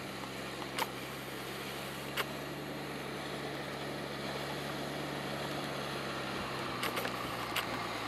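JCB Fastrac 2155 tractor's diesel engine running steadily as it pulls a trailer loaded with straw bales, growing a little louder as it approaches. A few short sharp knocks sound over it, one about a second in, one about two seconds in, and two close together near the end.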